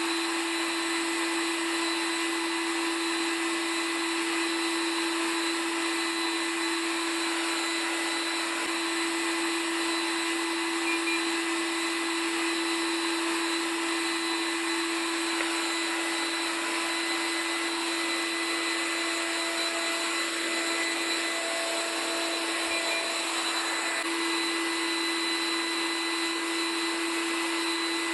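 Homemade central vacuum's three-stage turbine unit running steadily: an even rushing air noise with a constant hum and a fainter high whine. The turbines run liquid-cooled under a temperature test.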